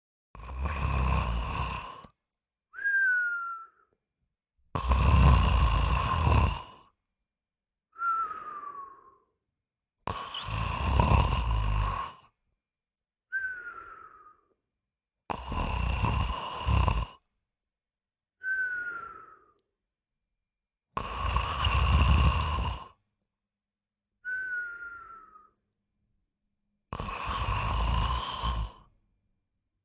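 Slow, regular snoring. Each long, rough snore is followed by a short whistling breath that falls in pitch, and the pair repeats about every five and a half seconds.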